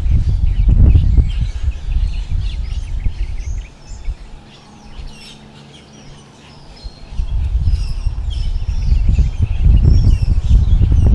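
Strong wind gusting over the microphone with a heavy low rumble; it dies down for a few seconds about midway, then builds again. Birds chirp throughout.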